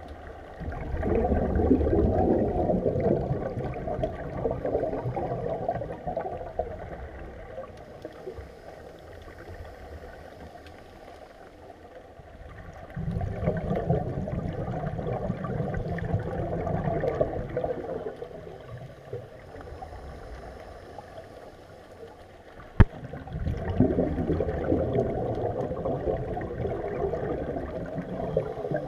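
Scuba regulator exhaust bubbles heard underwater: three long bubbling exhalations of about five seconds each, roughly ten seconds apart, with quieter stretches between them. A single sharp click comes shortly before the third.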